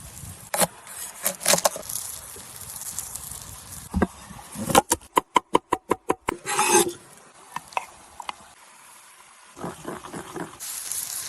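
Food-preparation handling sounds on wood: scattered knocks and scrapes, with a rapid, even run of about ten sharp taps about halfway through, followed by a short scrape.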